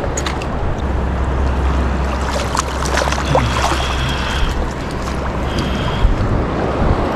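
Wind rumbling on the microphone over surf lapping around a wading angler, with splashing and a few sharp clicks in the middle as a small shark is brought to hand and lifted from the water.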